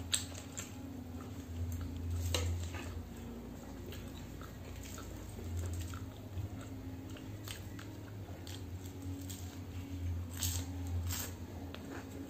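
Close-up eating sounds: biting into and chewing samosa and raw mustard leaves, with sharp crunches every few seconds, the loudest about two seconds in and twice near the end, over a steady low hum.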